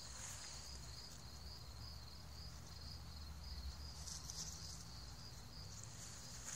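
Crickets chirping in an even rhythm, about three chirps a second, over a higher steady insect hiss. A brief rustle comes about four seconds in.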